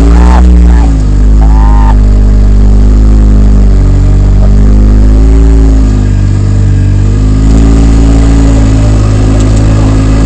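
Polaris RZR side-by-side engine revving up and down as it crawls over rock, heard loud from inside the open cab, its pitch rising and falling several times.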